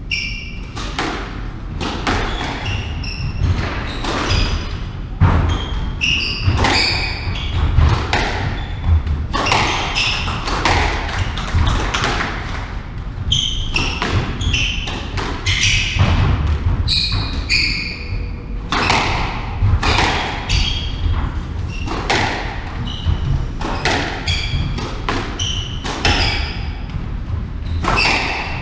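A squash rally: the ball struck by rackets and smacking off the front wall, floor and glass, a sharp hit every half second to a second, mixed with short high squeaks from shoes on the wooden court floor.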